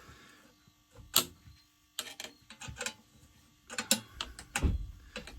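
Scattered sharp clicks and light knocks from hands handling hard objects, with a duller thump near the end.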